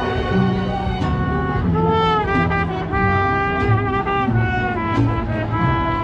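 Mariachi band playing live: trumpets and violins sound the melody together in long held notes, over guitars and a plucked bass line.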